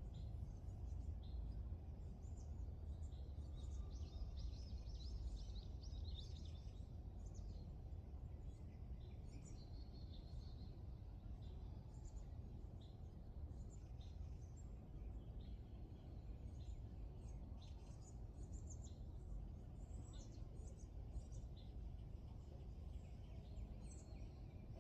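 Small songbirds chirping and calling in many short, high notes, busiest about four to six seconds in and again around ten seconds, over a steady low outdoor rumble.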